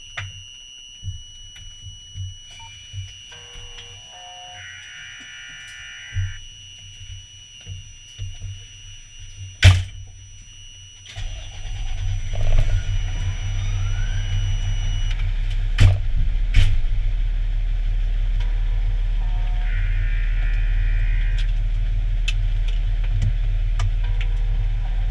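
Fire engine's diesel engine starting about eleven seconds in, then running steadily as the loudest sound. Before it starts there are scattered thuds and clicks under a steady high-pitched tone that stops a few seconds after the start, with one sharp knock just before it.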